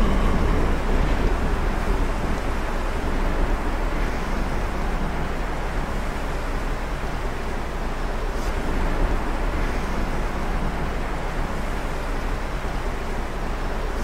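Steady low rumbling noise, even throughout.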